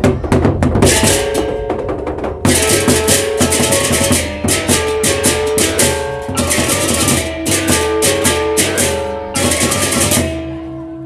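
Sasak gendang beleq gamelan ensemble playing a baleganjur piece: large barrel drums, dense clashing hand cymbals and tuned kettle gongs in fast interlocking rhythm. About ten seconds in the cymbals stop and a single gong note rings on, fading.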